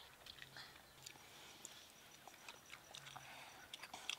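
Near silence: faint outdoor room tone with scattered small clicks and smacks from eating by hand, and a faint, high, pulsing chirp that comes and goes.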